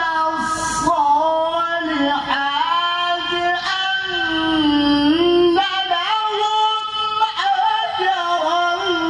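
A man's voice reciting the Quran in the melodic tilawah style into a microphone: long, high, ornamented notes that waver and slide in pitch through one drawn-out phrase.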